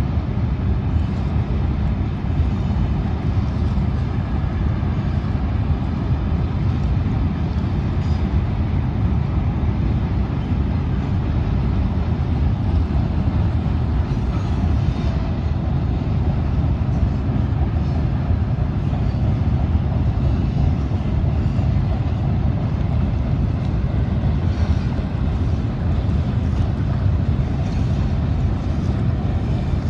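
Freight train rolling across a steel truss railway bridge: a steady, continuous low rumble, mixed with wind on the microphone.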